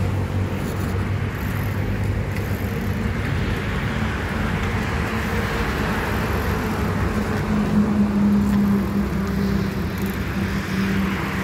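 A motor vehicle's engine running steadily under road and wind noise, its low hum loudest about eight seconds in.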